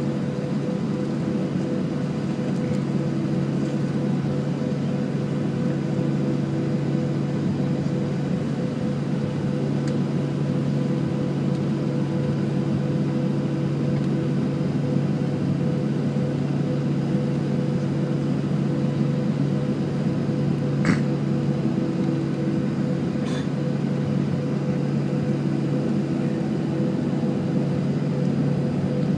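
Steady cabin noise inside a taxiing Boeing 737: the idling jet engines and air-conditioning make an even rumble with a constant hum under it. One brief click comes about two-thirds of the way through.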